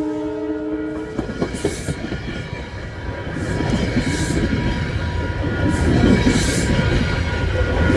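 Metro-North diesel train passing close by. The last of a horn blast cuts off about a second in, then comes a steady rumble with the clatter and clicks of wheels over the rails.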